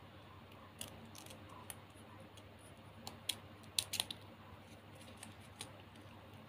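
Small scissors snipping plastic ribbon: a scattering of sharp snips, clustered about three to four seconds in.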